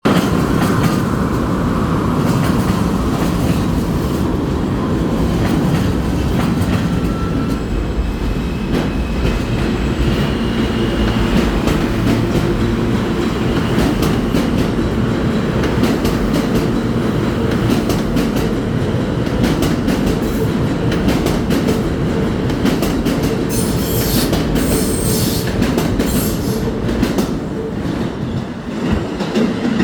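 R160B subway train with Alstom propulsion departing a station: a steady, loud rumble of wheels and motors with clickety-clack over the rail joints. A few brief high tones come in the first third, and a burst of sharp, bright clatter comes near the end.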